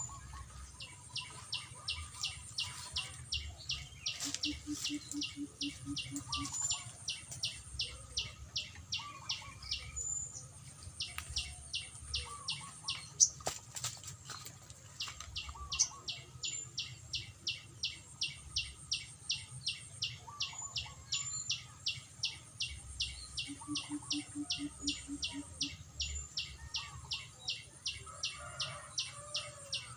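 Birds calling in a garden: a steady run of short, high, evenly spaced ticking notes, about three or four a second, with a pause partway through. Scattered brief chirps and warbling calls come over it, along with two short low buzzing trills and one sharp click.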